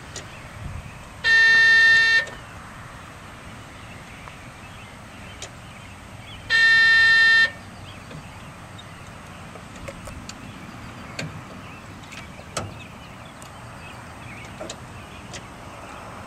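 Electronic warning alarm on a Caterpillar D6R crawler dozer sounding twice, a steady high tone about a second long each time, about five seconds apart, with a few faint clicks from the cab in between.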